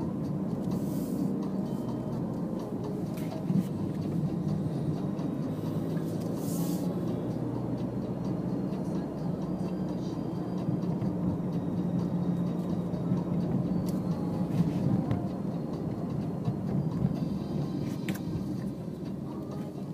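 Car driving at low speed, heard from inside the cabin: steady engine and tyre-on-road noise.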